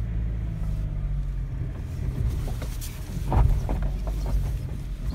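Steady low engine hum and road rumble of a vehicle driving along, with a few knocks and a louder thump about three and a half seconds in.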